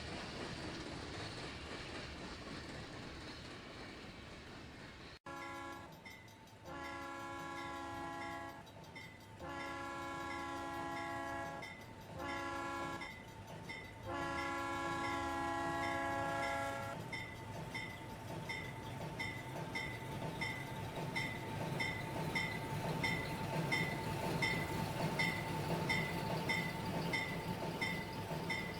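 Steam locomotive whistle blowing the grade-crossing signal, long, long, short, long, as a chord of several steady tones. After it a bell rings in an even rhythm while the train's low rumble grows.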